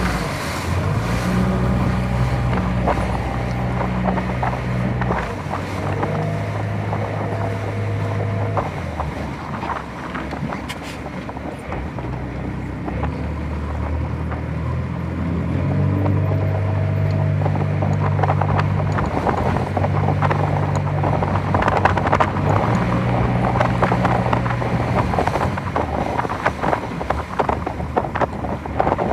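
Strong wind buffeting the microphone on a sailing dinghy beating close-hauled, with a low hum that comes and goes and scattered knocks from the boat, more of them in the second half.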